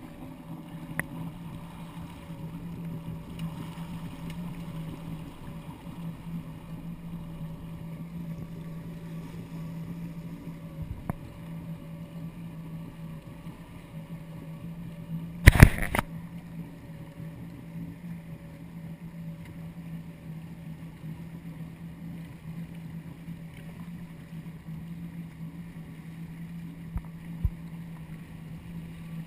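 Yamaha WaveRunner personal watercraft engine running steadily at low speed, a constant low hum. A single loud knock a little past halfway through.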